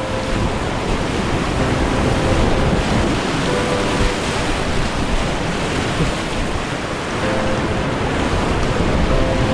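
Whitewater rapids rushing, a loud, steady wash of water noise.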